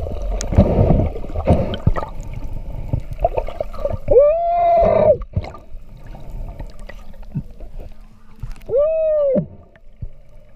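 Underwater water noise and knocks, then two drawn-out cries, each arching up and then down in pitch. One comes about four seconds in and lasts about a second, and a shorter one comes near the end. They are a diver's muffled underwater shouts.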